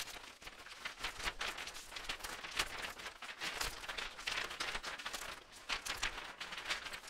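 Quick, irregular rustling and crackling noises, with a faint low rumble underneath.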